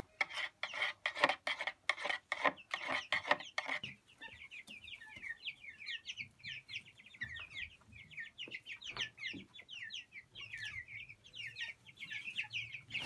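A spoon clicking against the plastic waterer as the water is stirred for the first few seconds. From about four seconds in, young broiler chickens peep continuously, many short falling chirps overlapping.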